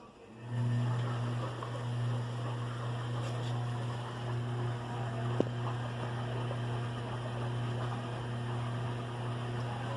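Bosch washing machine's motor humming steadily as it turns the drum during a full-load wash, starting about half a second in. A single sharp click comes about halfway through.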